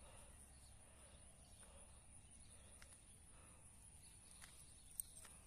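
Near silence with a faint, steady, high-pitched insect chorus. There is a single sharp click about five seconds in.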